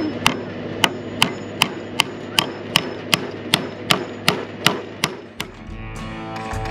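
A hammer driving nails into a wooden signpost: about fourteen quick, even blows, nearly three a second, stopping about five seconds in. Acoustic guitar music comes in near the end.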